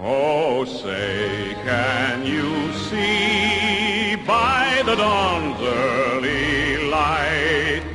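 Music with a solo voice singing long notes with heavy vibrato and slow slides in pitch over an accompaniment.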